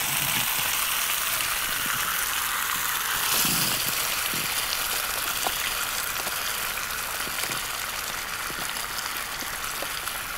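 Tomato-based barbecue sauce sizzling in oil in a frying pan: a steady hiss that eases slightly toward the end.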